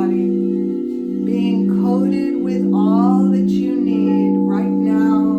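Crystal singing bowls ringing several steady, overlapping tones, with a wordless voice toning and gliding in pitch over them.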